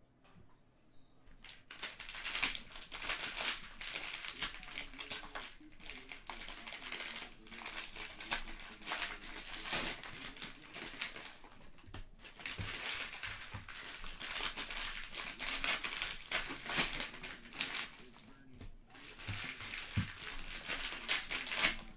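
Plastic wrappers of Panini Prizm basketball cello packs crinkling and tearing as the packs are ripped open by hand. It starts a second and a half in and breaks off briefly about 12 and 19 seconds in, between packs.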